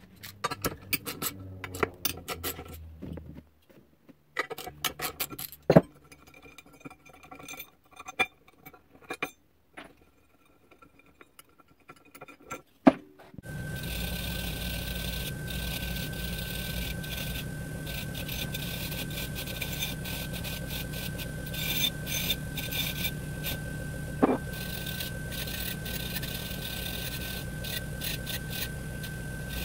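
Scattered clicks and knocks of parts being handled. Then, about 13 seconds in, a bench grinder's wire wheel starts and runs steadily with a constant whine and a scratchy scrubbing hiss, wire-brushing dirt and corrosion off aluminum snowmobile roller secondary clutch parts. A single sharp knock comes near the end.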